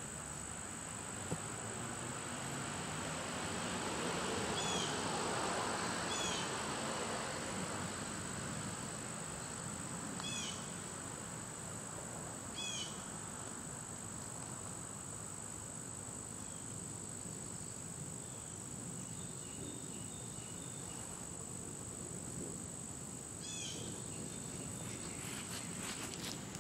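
Steady high-pitched insect chorus, with about five short chirps scattered through. A soft rushing noise swells and fades around five seconds in.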